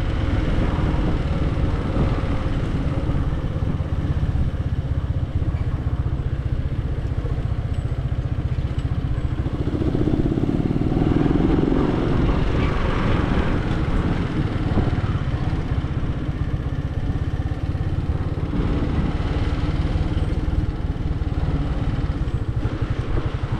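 Motor vehicle running steadily: a continuous low engine and road rumble, swelling briefly about halfway through.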